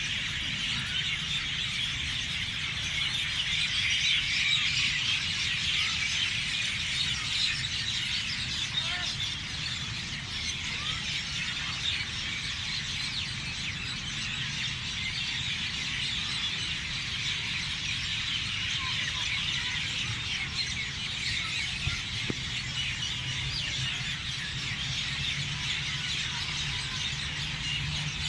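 A dense chorus of many small birds chirping and singing at once, continuous and overlapping, over a low steady hum.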